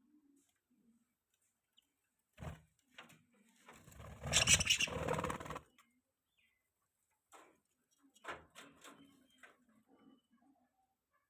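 Pet budgies (budgerigars) chattering softly, with a few sharp knocks and clicks. About four seconds in comes a loud, noisy rustle lasting about two seconds.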